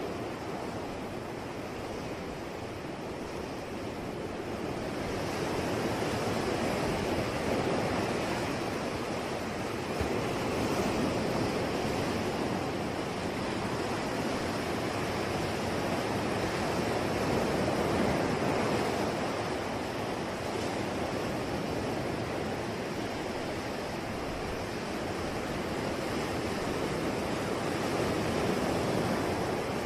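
Sea waves breaking and washing on a shore, a steady rush that swells and eases every several seconds.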